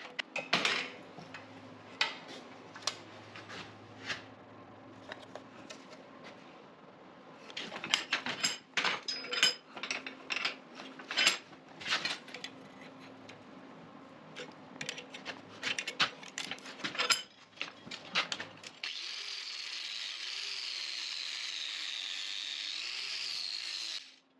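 Light cross-peen hammer blows and metal clinks on a hot steel skillet handle clamped in a vise as it is bent to a half curve, in irregular runs of taps. Near the end a steady hiss takes over for several seconds and then cuts off suddenly.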